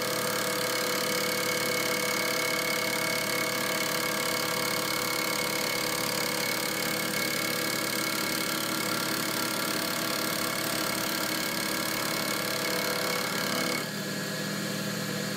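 Mill drill spindle running steadily with its cutter taking a facing cut across the top of a raw casting. Near the end the cutting sound drops away as the cutter clears the part, and the machine keeps running.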